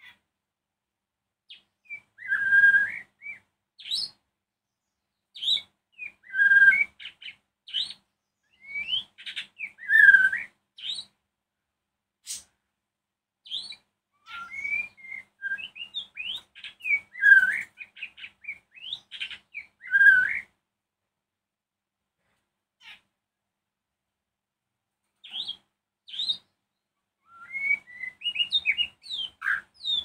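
White-rumped shama (murai batu) singing: varied phrases of clear whistles and quick chirps, coming every few seconds, with a pause of a few seconds about two-thirds of the way through before the song starts again.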